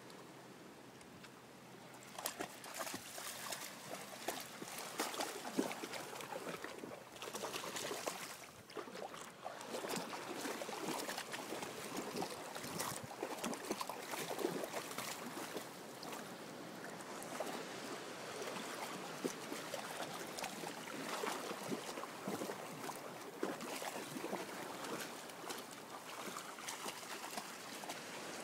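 Shallow seawater splashing and sloshing as dogs wade through a rocky tide pool, in uneven bursts starting about two seconds in.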